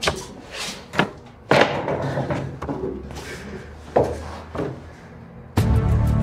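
Sharp knocks and thumps on a wooden table and chair as a man sits down, about five in four seconds. About a second and a half in comes a longer, louder stretch. Tense background music begins near the end.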